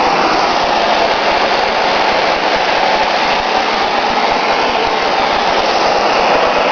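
Handheld gas torch running with a loud, steady hissing roar that cuts off abruptly at the end.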